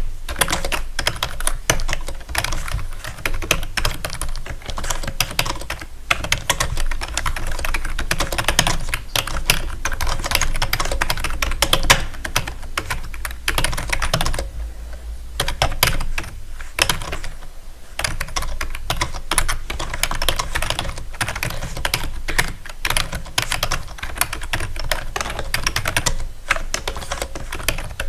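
Typing on a keyboard: a dense, fast run of key clicks that pauses briefly about halfway through, over a steady low hum.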